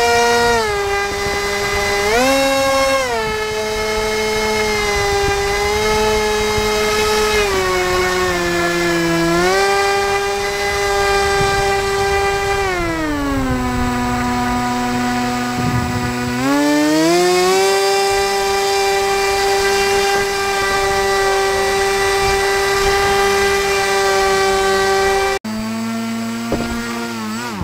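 Radio-controlled airboat's motor and air propeller, heard from on board: a loud, steady whine that rises and falls in pitch as the throttle is worked. It drops low for a few seconds in the middle, climbs back and holds, then falls away right at the end as the throttle is cut.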